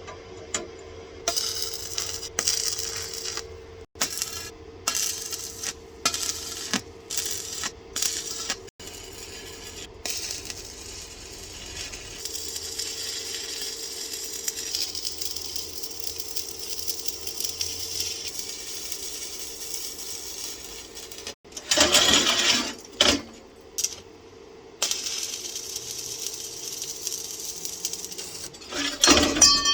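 Metal clinking and rattling, a run of short sharp strikes, then a steadier scraping hiss, with a few louder bursts near the end.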